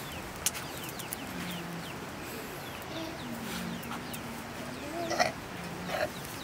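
Chickens calling: several low, drawn-out clucks, with many short high falling peeps among them. There is a sharp knock about five seconds in.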